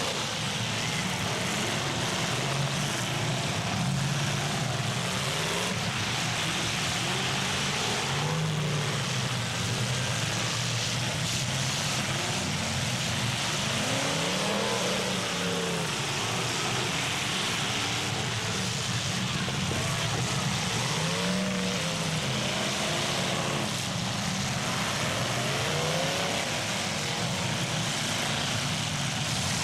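Engines of several full-size demolition-derby cars revving together over a dense, noisy din. Their pitches overlap, rising and falling repeatedly as the cars accelerate and back off.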